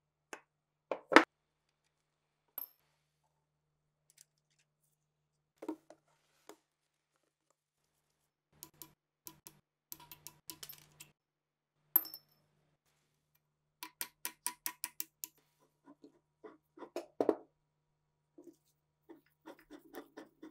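Small metal machine-gun parts being handled: scattered clinks and knocks, the loudest about a second in, and a quick run of about eight clicks a little after halfway.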